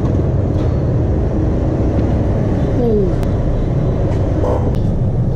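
A small car driving slowly past close by, over a steady low rumble of street traffic.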